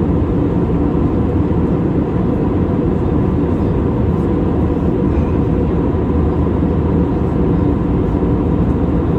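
Steady cabin noise of an Airbus A320neo in flight, heard from a window seat over the wing: a loud, even rumble of engine and airflow, with a faint steady tone running through it.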